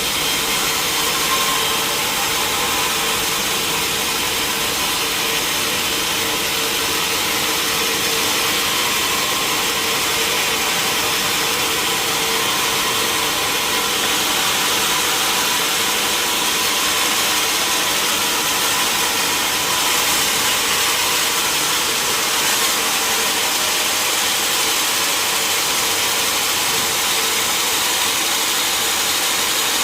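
Sawmill machinery running steadily while sawing redwood: a continuous hiss of the cut with a steady machine hum under it, unchanging throughout.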